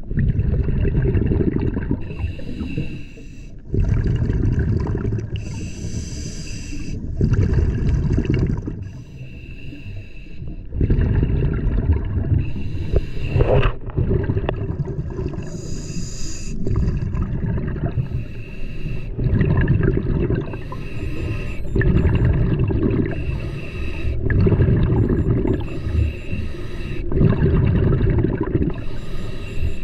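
Scuba diver breathing through a regulator underwater: hissing inhalations alternate with rumbling bursts of exhaled bubbles, one breath every few seconds.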